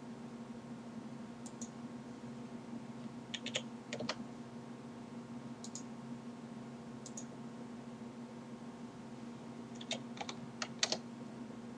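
Computer keyboard and mouse clicks from dimension values being entered: a short run of quick keystrokes about three to four seconds in, single clicks around six and seven seconds, and another run of keystrokes near the end. A steady low hum runs underneath.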